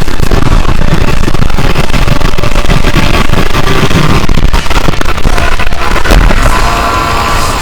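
Yamaha YZ125 two-stroke single-cylinder dirt bike running under way, recorded loud and distorted by an onboard camera, with rough, crackling noise that eases off about six seconds in.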